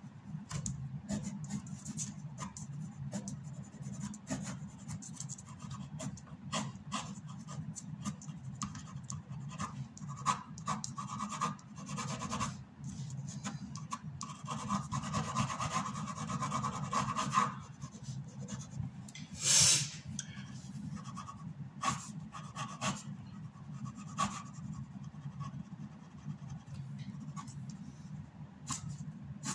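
Ink pen nib scratching across paper in many short hatching strokes, with a denser run of strokes in the middle and one louder scrape about twenty seconds in, over a low steady hum.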